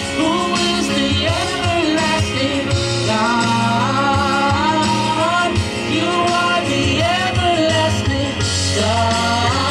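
Gospel worship song: voices singing a melody over band accompaniment.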